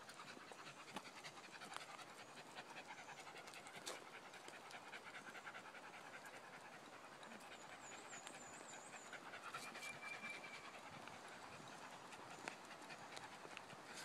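Faint, rapid panting of a small terrier. A little past the middle a bird gives a quick run of high chirps.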